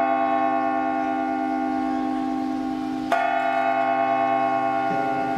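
Church bell tolling slowly, struck once about three seconds in, each stroke ringing on with a long hum that fades until the next. Near the end a lower tone comes in under the ringing.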